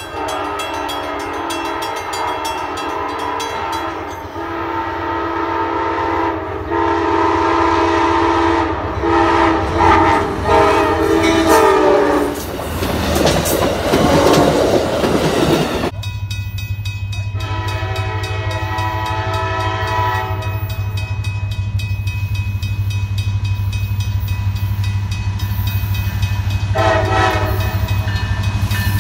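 Diesel locomotive horn blowing in long blasts as a passenger train approaches a grade crossing, then the rushing noise of the passenger cars going by. Then a freight train's diesel locomotive approaches with a steady low engine drone, sounding its horn twice.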